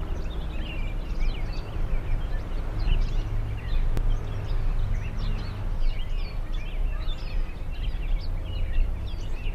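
Several small birds chirping over and over, many short quick calls overlapping, above a steady low rumble of outdoor background noise.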